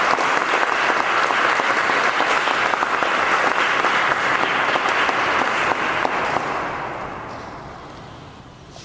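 Audience applauding in a large church, steady for about six seconds and then dying away toward the end.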